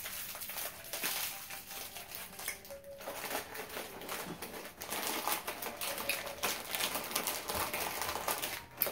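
Plastic snack wrappers crinkling and rustling as candy packets are handled over a cardboard box, a run of quick crackles with a short lull just before three seconds in.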